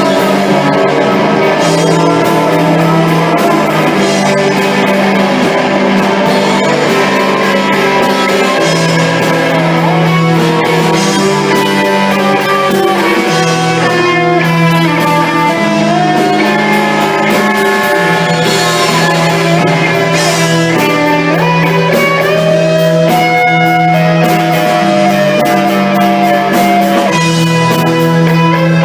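A rock band playing an instrumental passage: guitar, keyboard and drums, with a melody moving over a low repeating chord pattern and no vocals.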